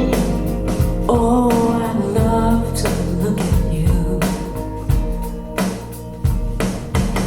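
A pop-rock song played back through a pair of Focal Aria 906 bookshelf speakers: drum kit, bass and guitar, with a sung line starting about a second in.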